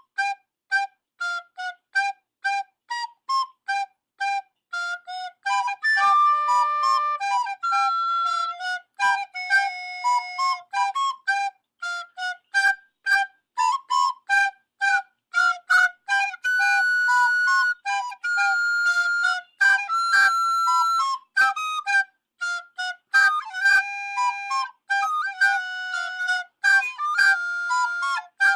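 Music: a high wind-instrument melody of quick short notes, about three a second, with a few longer held notes scattered through.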